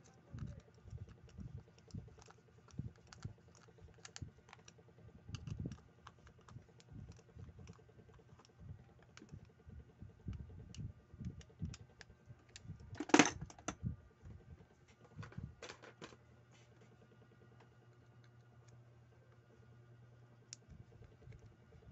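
Small scattered clicks and taps of metal reel parts and a precision screwdriver as a Daiwa World Spin 4000 spinning reel is handled and screwed together, with one sharper, louder clack a little past halfway.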